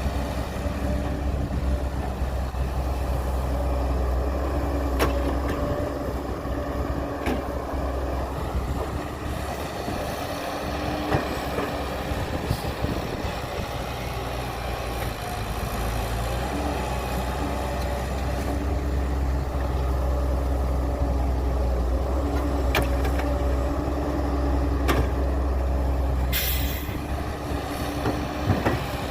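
Heavy diesel engines of earthmoving machinery running steadily, the engine note easing off for a few seconds in the middle. There are a few sharp knocks, and a short hiss near the end.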